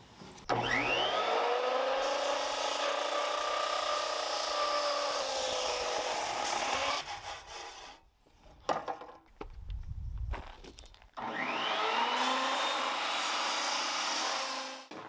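An electric power tool winds up and cuts into wood twice: first for about six seconds, then, after a few knocks and a low thud, for about four seconds.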